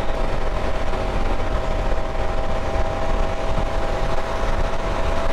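Motorcycle at steady highway speed: the KTM 790's parallel-twin engine running evenly under loud, constant wind noise on the microphone.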